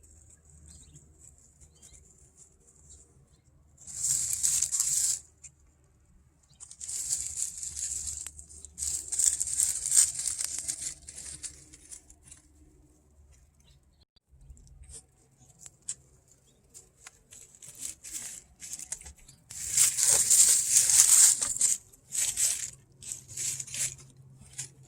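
A Maltese dog scrabbling and rustling through dry brush while hunting a lizard. The rustling comes in several separate bursts with quiet gaps between, the longest and loudest about 20 seconds in.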